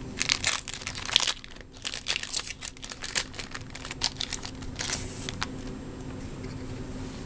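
Crinkling and rustling of card-pack wrapping as baseball card packs are handled and opened: a dense run of quick crackles that dies away about five seconds in.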